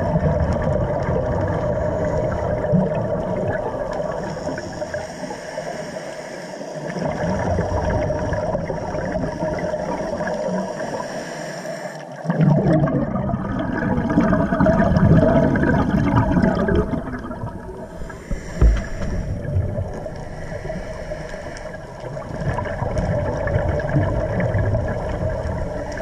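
Underwater sound on a scuba dive: a steady drone with surges of bubbling and gurgling, typical of a diver's regulator exhaust. There is one short knock about two-thirds of the way through.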